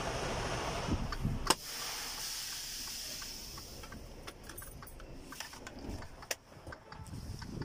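Inside a truck cab: a single sharp knock about a second and a half in, then a run of light clicks and rattles as controls near the dashboard are handled, over a steady low rumble that drops after the knock.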